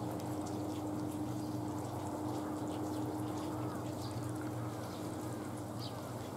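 Steady trickling and dripping of rain and meltwater on a wet station platform, under a steady low hum that stops near the end.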